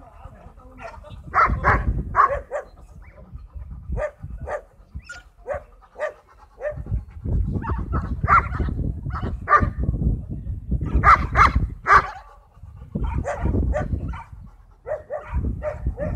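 A dog barking repeatedly in short clusters, with the loudest burst of three quick barks about two-thirds of the way through, over a low rumble.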